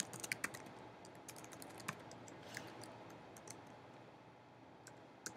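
Computer keyboard typing: quiet, irregular runs of key clicks with pauses between them, and one sharper click near the end.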